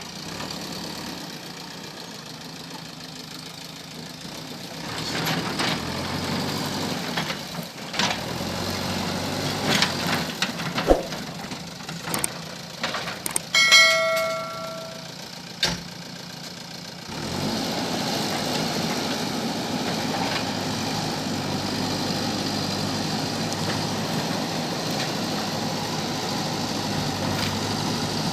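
Backhoe loader's diesel engine running, going from a low idle to working speed, with sharp clanks and knocks in the middle stretch as the bucket digs stone. About halfway through comes a brief, steady horn-like tone, and after it the engine holds an even working note.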